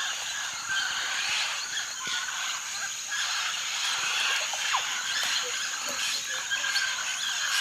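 A dense chorus of small animal calls: many short high chirps and squeaks over a steady high hiss.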